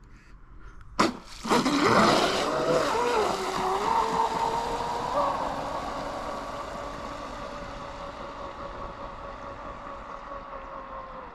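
Pro Boat Blackjack 24 RC catamaran's 2200 kV brushless motor and propeller. A sharp knock comes about a second in, then the boat launches with a loud whine that wavers in pitch as the throttle comes on a little too quickly and is held down. It then settles into a steady high whine at full throttle that slowly fades.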